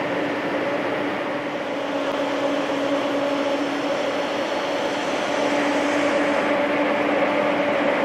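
Jonsen wide belt sander running steadily: a machine hum with two steady tones over a broad hiss, with a higher hiss that swells and fades around the middle.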